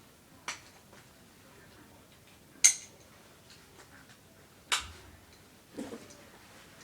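Four sharp clicks and knocks, the loudest nearly three seconds in, with faint ticking between them: the buckles and fittings of an airsoft tactical vest being handled while it is put on.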